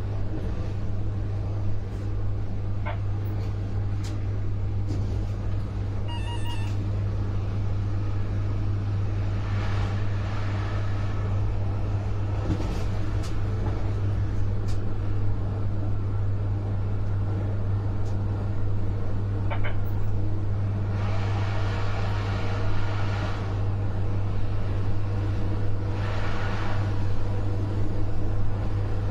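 Train hauled by a V63 electric locomotive running along the line: a steady low hum under rolling wheel-and-track noise, which swells louder a few times, most around ten seconds in and again for a couple of seconds past the twenty-second mark.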